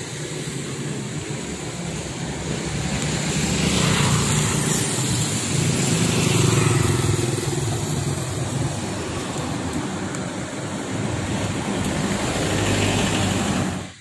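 Street traffic: motorcycle and car engines passing, swelling louder a few seconds in and again near the end.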